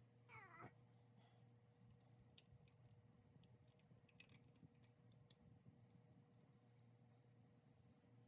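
Near silence: faint, scattered clicks and ticks over a low steady hum, with a brief falling squeak about half a second in.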